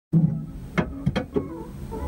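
Background music starting abruptly, with steady notes and a few sharp hits.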